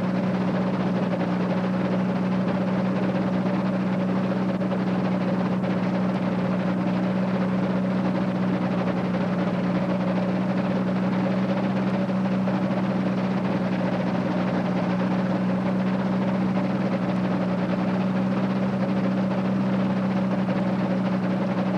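The Rotax 582 two-stroke twin engine of an Air Creation microlight trike, running steadily at a constant pitch, with a dense rushing noise over it.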